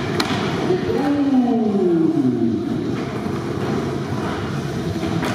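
Skateboard wheels rolling on the ramps of an indoor skatepark, with a sharp knock of the board at the very start. About a second in, a long drawn-out call slides down in pitch over a second and a half.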